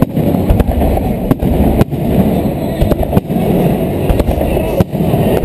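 Fireworks bursting overhead: about half a dozen sharp bangs, spread irregularly, over the steady murmur of a large crowd.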